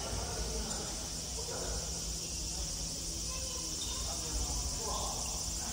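Futsal game ambience in a large sports hall: a steady high-pitched hiss and a low hum, with faint distant calls from the players about a second and a half in and near the end.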